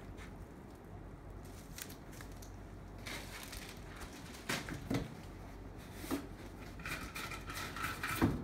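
Plastic bag and foam packing sheet crinkling and rustling as a flat-screen TV is lifted out of its cardboard box and handled, with scuffs against the cardboard. There are a few knocks about halfway through and a thump just before the end.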